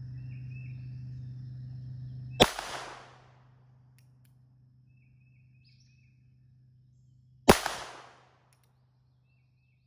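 Two shots from a North American Arms .22 Long Rifle mini revolver with a 1 1/8 inch barrel, firing Federal 36-grain copper-plated hollow points. The shots come about five seconds apart in slow aimed fire, each a sharp crack with a brief echo.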